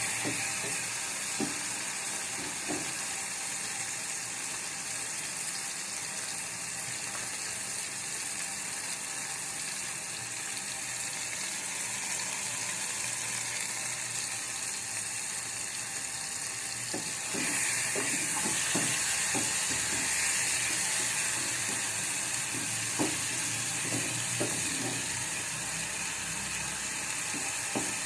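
Chopped onions and tomatoes with salt frying in oil in a pan: a steady sizzle that grows louder about two-thirds of the way through, with a few light clicks.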